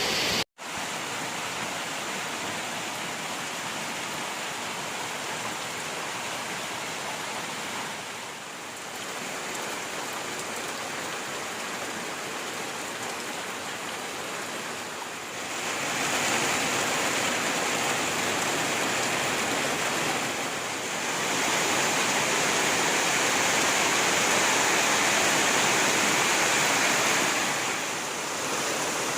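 Heavy rain falling, a steady rushing hiss that grows louder about halfway through and stays heavy.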